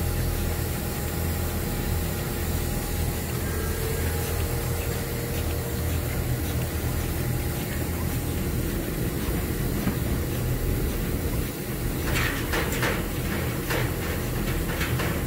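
Milking machine's vacuum pump running with a steady hum and hiss as a cow is milked into a bucket milker. A few short clatters come near the end.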